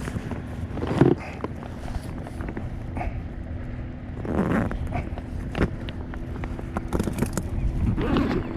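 Scattered knocks and clatter from handling gear on a small fishing boat, the loudest about a second in, over a steady low rumble of wind and water.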